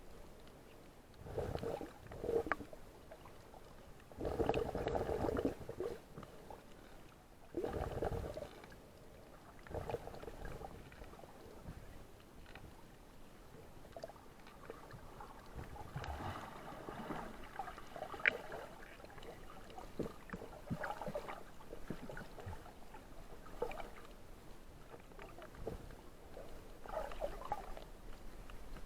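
Water sloshing and gurgling, coming and going in uneven surges a few seconds apart.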